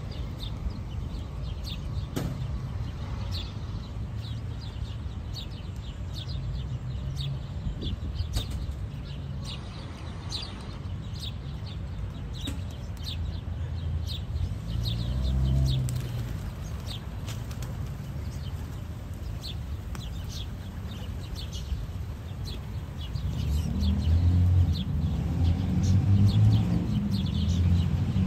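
Sparrows chirping over and over against a steady low rumble of city traffic. Toward the end, a close flock of rock pigeons coos in low, throaty notes.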